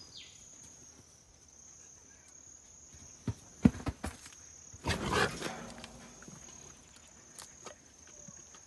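Feral pigs in a trap pen: a few sharp knocks, the loudest about three and a half seconds in, then a pig's brief, loud, breathy grunt about five seconds in, over a steady high insect buzz.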